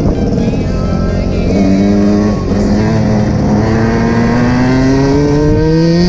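Dirt bike engine revving up under load, its pitch climbing steadily through a long pull from a little past two seconds in, after a brief dip.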